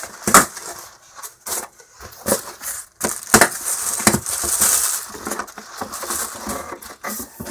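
An online-order package being handled and opened by hand: a string of knocks and clicks, then from about three seconds in a long stretch of crackly rustling and crumpling of the packaging.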